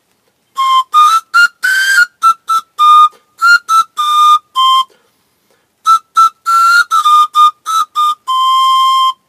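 Birch-wood pan pipe, a replica of the boxwood pan pipe found at Jorvik, playing a short tune of quick, separate, crisp notes in two phrases with a brief pause between them, ending on a longer held lower note.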